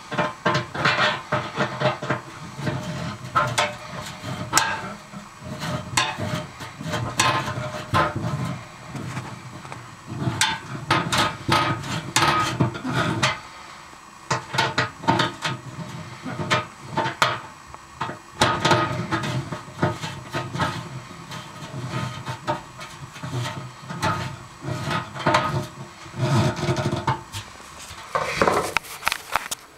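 A screwdriver driving the mounting screws of an oven bake element's metal plate into the oven's sheet-metal back wall: irregular metallic clicks, knocks and scrapes, with brief pauses between bursts.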